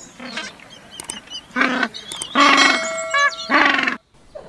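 African penguins braying: a run of loud, harsh calls, the longest lasting about a second near the middle, with a ringing chime tone laid over part of it.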